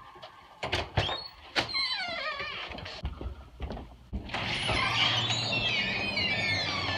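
Knocks and clatter with high wavering squeaks, then about four seconds in a shop's glass front door opens with more squeaking and steady street noise with a low traffic hum comes in.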